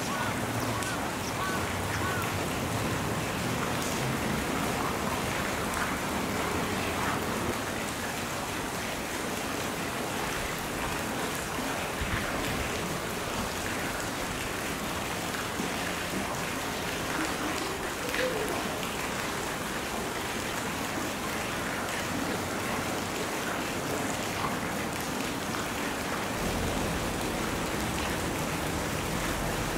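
Steady rushing outdoor noise, with faint voices murmuring in the background.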